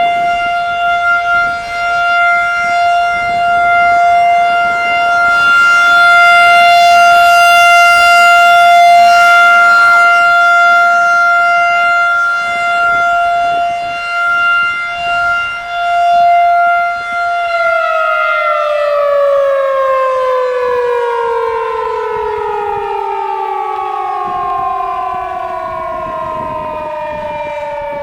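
Federal Signal 2001-SRN rotating outdoor warning siren sounding a weekly test: one steady, loud tone that swells and fades as the rotating head sweeps past. After about 17 seconds it is switched off and winds down, the pitch falling slowly.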